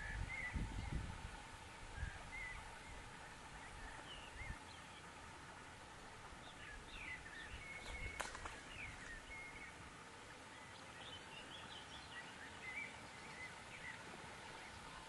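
Faint birdsong: short chirps and twitters from small birds, scattered throughout. A low rumble sits under the first second or so, and there is one sharp click about eight seconds in.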